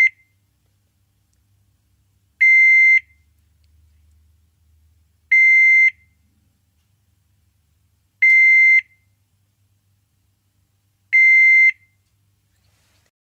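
Hospital machine warning beep: a single steady high tone about half a second long, repeating about every three seconds, over a faint low hum.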